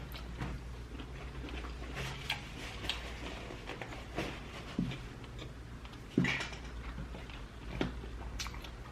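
Quiet chewing and mouth sounds close to the microphone: soft wet smacks and small clicks scattered through, over a low steady hum.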